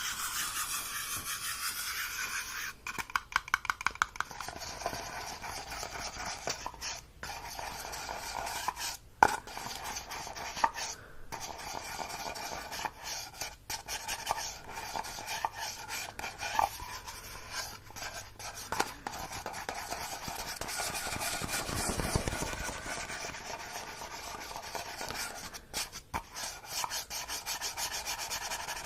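Close-up rubbing and scratching against a surface, with a quick run of about eight sharp taps about three seconds in and a few single sharp ticks later.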